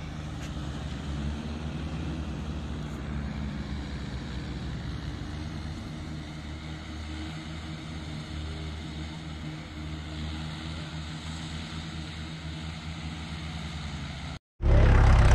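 Mahindra 575 tractor's diesel engine pulling a loaded trailer, heard from a distance as a steady low drone. Near the end the sound drops out for a moment and a much louder, closer tractor engine comes in.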